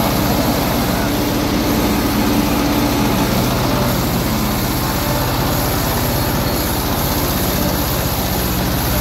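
Tractor engine running steadily under load while the tractor drives through floodwater. Its tyres churn and splash the fast-flowing water into a continuous rush.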